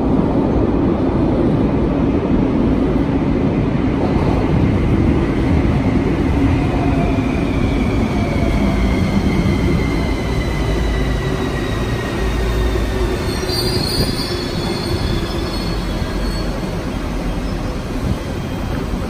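CAF-built metro train running into the station and slowing to a stop, its wheels rumbling on the rails. An electric whine falls slowly in pitch as it slows, and a brief high squeal comes about two-thirds of the way in.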